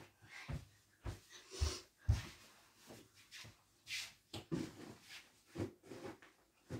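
Several soft low thumps close together, then scattered rustling and brief hissing swishes as a person moves about and handles things at close range.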